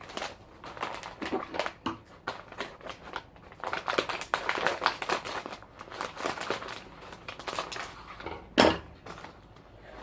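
A plastic snack bag crinkling and rustling as it is handled, with many quick crackles and one louder crack near the end.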